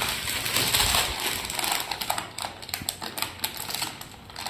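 Plastic sugar packet crinkling and crackling as it is handled, with a burst of dense crackle at first and then scattered sharp crinkles while its corner is bitten to tear it open.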